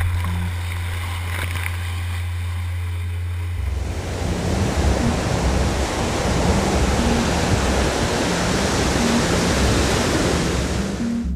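Ocean surf breaking and whitewater rushing, a loud even roar that starts suddenly about four seconds in and cuts off just before the end. Before it, a low steady tone of background music.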